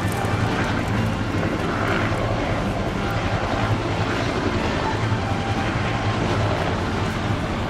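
Several military helicopters, UH-1J utility helicopters among them, flying low with steady rotor and turbine noise, with wind buffeting the microphone.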